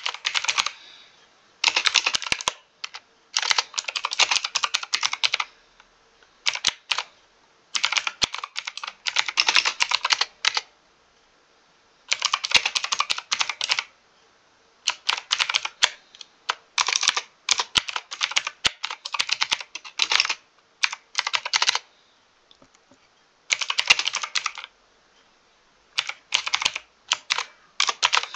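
Mechanical keyboard typing in quick bursts of rapid keystrokes, each burst lasting a second or two, with short pauses in between.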